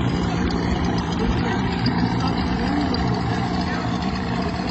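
An engine running steadily: a constant hum over a continuous rush of noise.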